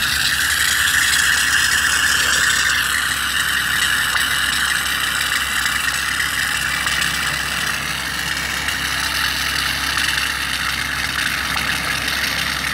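Compressed natural gas hissing steadily out of a car's CNG cylinder as it blows out foamy, emulsified oil that has collected inside the cylinder.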